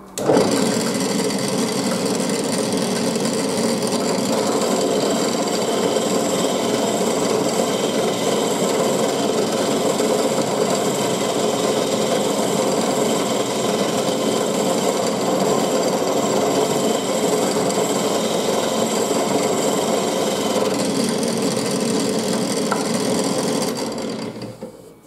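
A benchtop drill press spins a stack of glued wooden discs while a rasp is held against them to true the homemade spindle: a steady rasping scrape over the motor's hum. It starts suddenly and stops about a second before the end.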